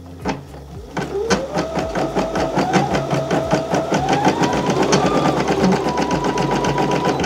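Baby Lock embroidery machine resuming a design after a thread fix. The needle strokes start slowly, then about a second in the machine speeds up to fast, even stitching with a motor whine that climbs in pitch, and it stops near the end.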